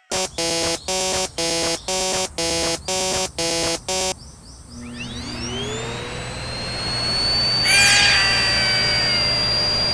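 Level-crossing warning signal sounding an electronic ding about twice a second, eight times, then stopping. A rising whine follows and settles into a steady tone over a growing hiss and hum, with a brief cluster of falling tones about eight seconds in.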